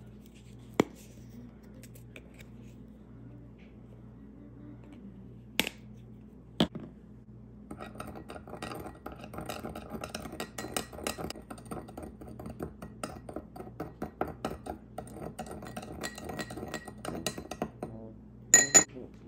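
A metal spoon stirring sugar with ground cinnamon and nutmeg in a small glass bowl: about ten seconds of quick scraping clinks against the glass, ending with two loud clinks. Before the stirring, a few single sharp clicks as the spice jars are handled.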